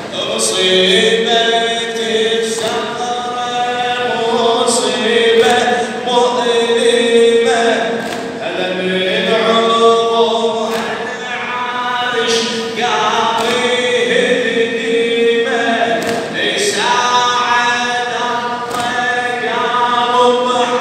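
A large group of men chanting a devotional refrain together, unaccompanied, in repeated phrases a few seconds long with short breaths between. A sharp slap sounds about every two seconds.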